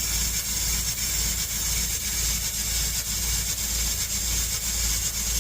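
RV 12-volt water pump running steadily, drawing antifreeze into the plumbing, while water hisses and spits from the open bathroom sink faucet as the lines are flushed.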